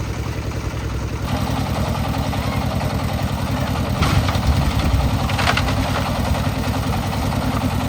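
Engine-driven concrete mixer running steadily, its engine note getting fuller a little over a second in. Two brief louder noises about four and five and a half seconds in.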